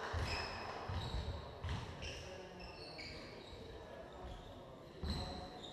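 A basketball bouncing on a wooden sports-hall floor: several dull thuds at uneven intervals in the first two seconds, a lull, then more near the end. Short high squeaks of sneakers on the floor come in between.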